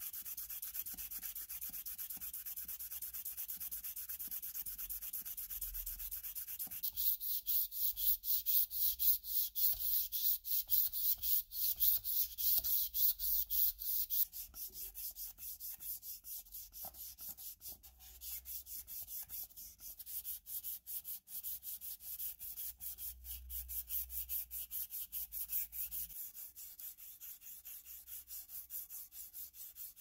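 Hand wet-sanding of a metal press frame, abrasive paper rubbed back and forth in quick scratchy strokes to smooth the hardened metal filler. The strokes get louder about a quarter of the way in and ease off a little around the middle.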